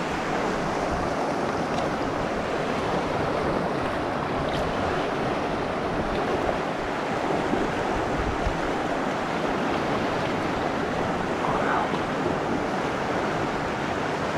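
River water rushing over stones, a steady, even rushing close by.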